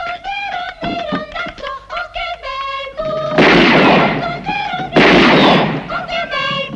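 Film-score music with a high melody, broken about halfway through by two loud gunshots, each with a long echoing tail, about a second and a half apart.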